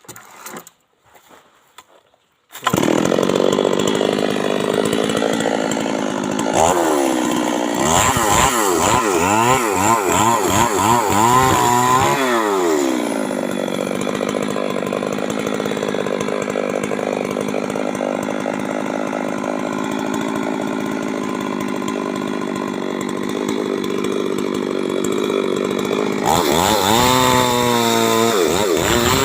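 Stihl MS 382 two-stroke chainsaw starting up suddenly about three seconds in. It is revved up and down several times, runs steadily at high speed for a long stretch, then is revved up and down again near the end.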